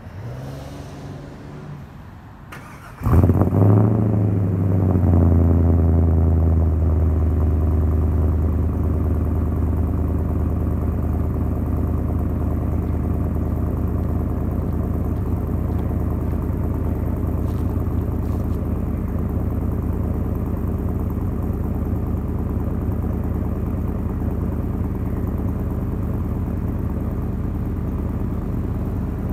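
Cold start of a Chevrolet Suburban's swapped 6.0 L LQ4 V8, exhaling through a single 3-inch exhaust with a Borla Pro XS muffler and high-flow cat. The engine catches about three seconds in with a quick flare in revs, then settles into a steady fast cold idle with a deep exhaust note that eases slightly.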